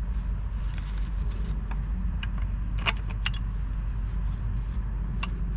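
A few sharp metallic clinks as a pipe wrench is taken off a black-iron gas fitting on the meter, about three seconds in and again near the end, over a steady low rumble.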